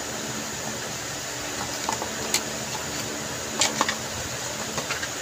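Steady fan-like hiss of room noise with a few light clicks and taps, from handling the cube and its plastic packaging, a small cluster of them a little past halfway.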